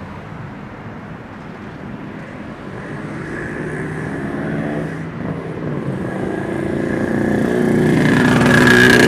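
Road traffic of cars and motorbikes passing close by. One engine goes past about four to five seconds in, and another engine grows steadily louder toward the end.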